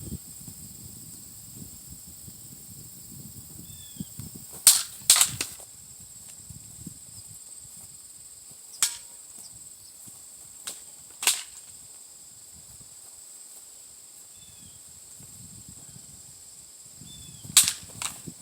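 Several sharp cracks at uneven intervals, some in quick pairs less than half a second apart, over a steady high insect hiss.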